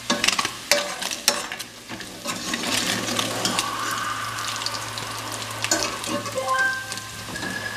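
Diced pork sizzling as it fries in lard in a stainless steel pan, with a metal spoon clinking and scraping against the pan as it is stirred. Several sharp clinks come in the first second and a half, then the frying hiss goes on with scattered lighter clicks.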